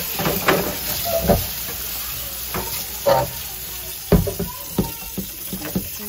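Tap water running into a stainless steel sink while a glass fridge shelf is scrubbed and rinsed, with irregular knocks and clunks of the shelf against the sink.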